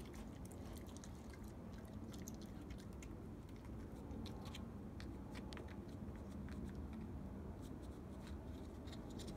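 Raccoon chewing halved seedless grapes: quiet, irregular wet clicks and smacks.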